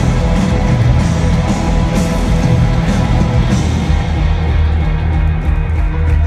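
A rock band playing loud live music with guitar and drums, heard from the audience in a large arena through a phone's microphone, heavy in the bass.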